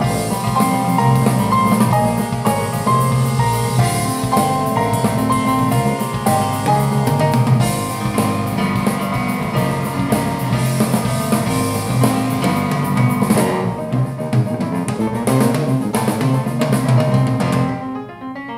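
Jazz-fusion piano trio of piano, bass guitar and drum kit playing through Klipsch R-15PM powered bookshelf speakers and recorded by a microphone in the room. Near the end the cymbals drop away and the music gets quieter.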